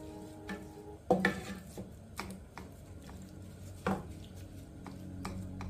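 Wooden spatula knocking and scraping against a square copper-coloured pan while stirring chunks of seasoned beef and onions in a little liquid. It gives several sharp knocks, the loudest about a second in and another near four seconds.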